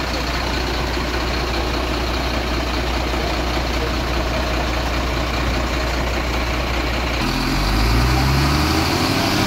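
A motor vehicle's engine idling with a low steady hum under a steady rushing noise. About seven seconds in, the engine note rises as it revs up.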